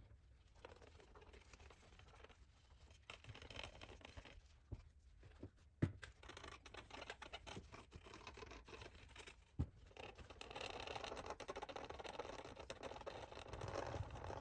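Faint scratchy rubbing of a cloth polishing the plastic lens of a motorcycle gauge cluster, with a few sharp taps of the cluster being handled, the rubbing steadier from about two-thirds of the way in.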